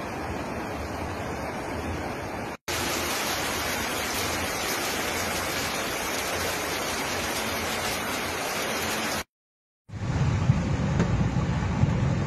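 Steady hiss of heavy rain and floodwater rushing down a street, cut short twice by brief dropouts. Near the end, a low rumble of a car driving on a flooded road, heard from inside the car.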